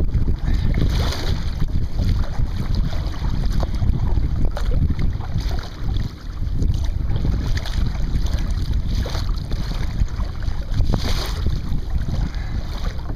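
Wind rumbling on the microphone over small sea waves slapping and splashing against a kayak's hull, with a few louder splashes.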